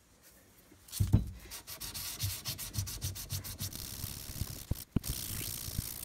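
Steel hammer head's face rubbed back and forth on 400-grit wet/dry sandpaper, a rhythmic scraping of quick repeated strokes that starts about a second in.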